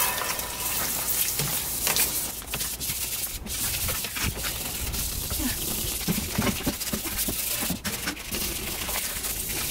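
Water spraying from a garden hose onto an aluminum bumper while it is wet-sanded by hand with 600-grit sandpaper: a continuous hiss of spray with the scrub of the paper rubbing on the metal.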